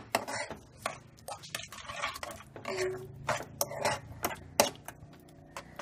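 A stirring utensil scraping and tapping against a nonstick pan as a thick apple-and-beetroot jam mixture is stirred so the freshly added sugar dissolves. The strokes are irregular, about two a second.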